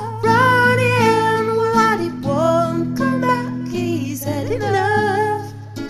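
Pop song: a woman singing a long, wavering melodic line over acoustic guitar and sustained low accompaniment.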